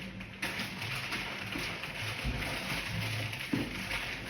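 Packaging being handled and rustled, a steady crackle of plastic or cardboard, with a single knock about three and a half seconds in.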